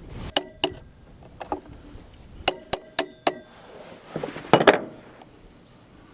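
Small metal parts and tools clinking with a brief metallic ring: a series of sharp clinks, then a short scraping rattle about four and a half seconds in, as chainsaw clutch parts are handled.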